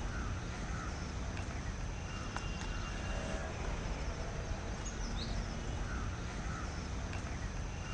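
Outdoor ambience: birds calling briefly several times over a steady background hiss with a low rumble underneath.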